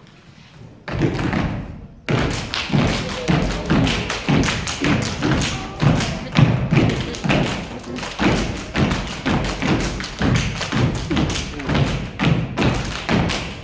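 Step team stepping in unison: rhythmic stomps on the stage floor with claps, a fast steady beat that starts after a brief pause about a second in.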